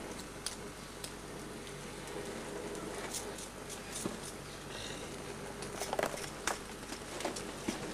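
Steady hiss of a propane ring burner, with scattered clicks and crackles as something held over the flame is turned and handled.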